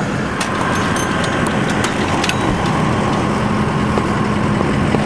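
A vehicle engine idling steadily, with a few light clicks in the first half.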